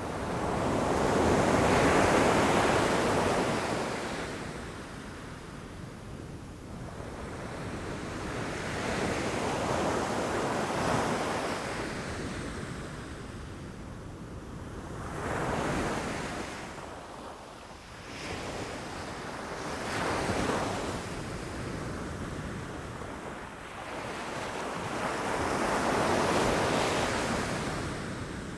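Ocean waves breaking against rocks, the rush of surf swelling and fading every few seconds, with five or so surges, the loudest about two seconds in. Wind on the microphone runs underneath.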